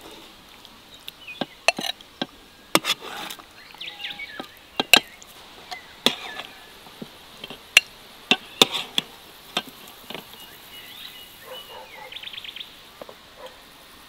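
A dozen or so sharp clicks and knocks at irregular intervals, with birds chirping faintly between them and a quick trill near the end.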